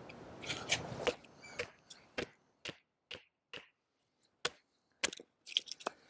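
About a dozen sharp wooden knocks, irregularly spaced and mostly about half a second apart: a stick with a small folding knife's blade wedged in it is being knocked on a wooden stump to split it.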